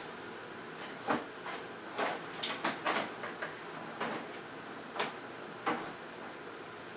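A series of about a dozen light knocks and clatters, several bunched together near the middle, over a steady rushing noise.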